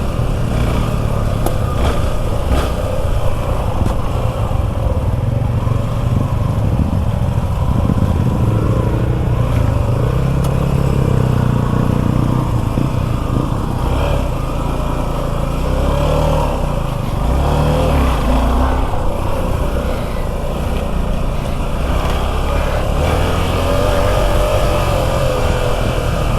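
Suzuki V-Strom 250 SX motorcycle's single-cylinder engine running continuously while riding at low speed, its note shifting up and down with the throttle.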